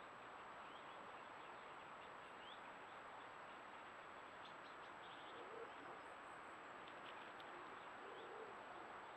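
Faint woodland birdsong: scattered short, high chirps and a low call heard twice, about five and a half and eight seconds in, over a steady hiss.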